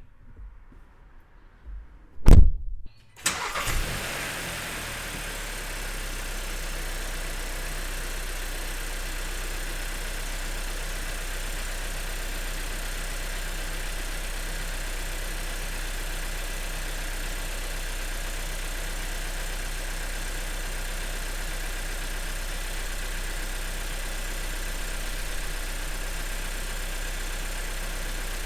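A car door shuts with a thud about two seconds in. About a second later the 2026 Volkswagen Jetta's turbocharged four-cylinder engine cranks, catches and settles into a steady idle.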